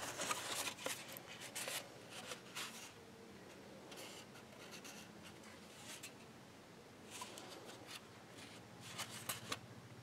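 Faint scratchy rubbing and clicks of a 3D-printed PLA plastic part being handled and turned over in the hand. The handling is busiest in the first second or two and again near the end.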